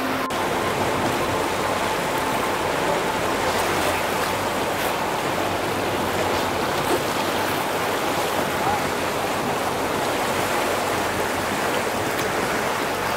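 Steady rushing noise of water and wind from an open boat under way, with no clear rhythm or tone.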